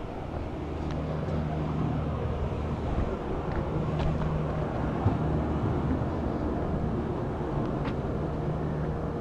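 A steady low mechanical hum that swells and eases over the seconds, with a few light footsteps and clicks on a flat tar roof.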